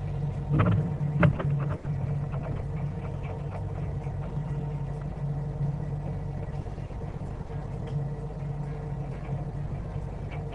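Inboard engine of a 1974 Gulfstar 44 motor sailor running with a steady low drone, with two sharp knocks about a second in.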